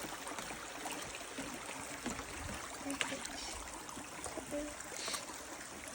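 Rainforest stream running, a steady rush of flowing water.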